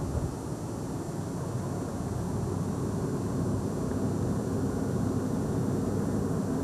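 Road and engine noise inside a moving car's cabin: a steady low noise that slowly grows louder.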